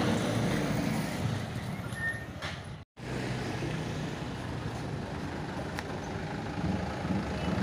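Light diesel truck engines running as the trucks move off slowly and approach at low speed. The sound cuts out completely for a moment about three seconds in, then the steady engine running resumes.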